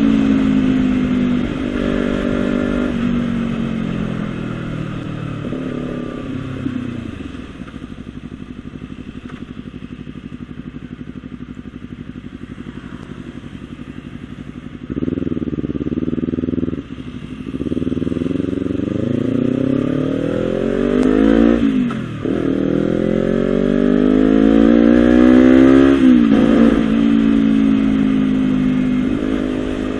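Honda CBR250RR parallel-twin engine through a Villan SV1 slip-on aftermarket exhaust. Its pitch first falls away and runs low and steady. About halfway through there is a short rev, then the engine climbs twice in pitch with a sudden drop between the climbs. It is loudest near the top of the second climb and then settles.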